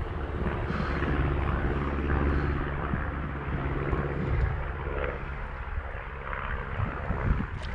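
Airplane flying over: a steady, low engine drone.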